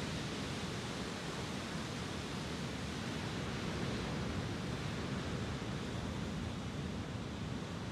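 Lake Superior waves breaking and washing up the beach: a steady, even rush of surf with no distinct separate crashes.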